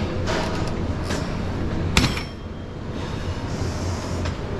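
Steady rumbling gym ambience with one sharp clank about two seconds in.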